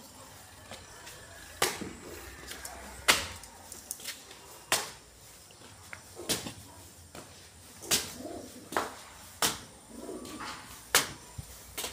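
Pigeons cooing softly, with sharp knocks about every second and a half.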